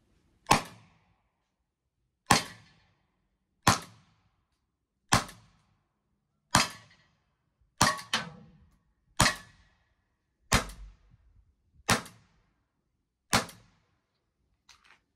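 T4E Walther PPQ M2 CO2 marker firing rubber balls: ten sharp single shots, one about every one and a half seconds, each with a short ringing tail. A faint double click follows near the end.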